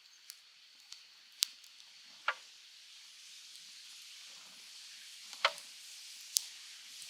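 Wood campfire crackling: a steady soft hiss with a handful of sharp, irregular pops.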